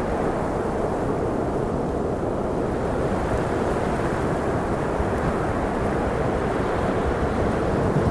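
Wind of a heavy snowstorm blowing steadily: a deep, unbroken rush of noise.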